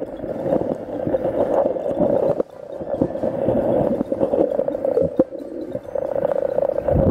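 Muffled underwater noise picked up by a camera microphone held underwater: a steady low rushing hiss with scattered clicks and crackles, dipping briefly about two and a half seconds in.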